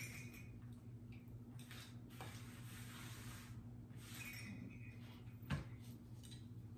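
Quiet handling of Christmas picks with small bells: faint rustling and light clinks, with one sharp tap about five and a half seconds in, over a steady low hum.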